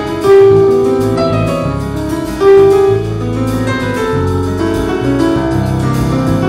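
Piano trio playing live: piano over bass guitar and drums. Two loud notes ring out, about a third of a second and two and a half seconds in.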